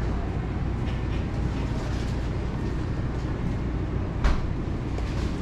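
Steady low rumbling background noise of a supermarket aisle, with one sharp knock a little over four seconds in.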